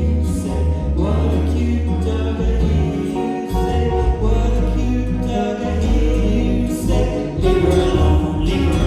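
Live band with violin, bass, banjo and saxophone playing under sung vocal harmonies, with a strong bass line.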